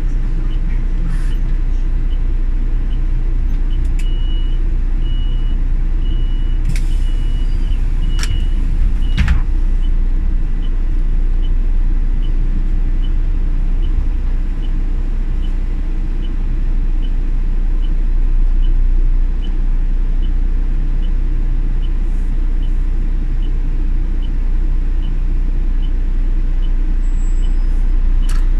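A city bus under way: a steady low engine and road rumble, with a short high tick repeating evenly somewhat faster than once a second. About four seconds in, a run of longer high beeps and a few sharp clicks breaks in for several seconds.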